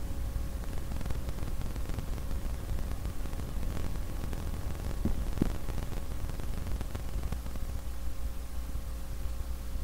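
Steady hiss with a low hum and rumble from the playback of a recorded EVP clip, the background noise of a paranormal field recording. Two faint short sounds come about five seconds in.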